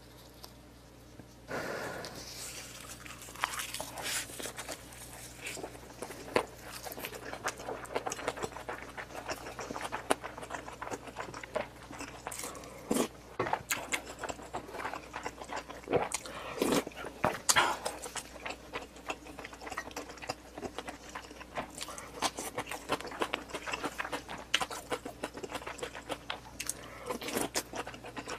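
Close-miked chewing and mouth sounds of someone eating: a dense run of irregular wet clicks and smacks, starting about a second and a half in.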